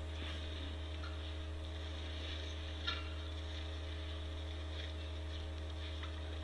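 Steady electrical hum on the outdoor webcam's audio feed, with a few faint ticks and one short, sharp sound about three seconds in.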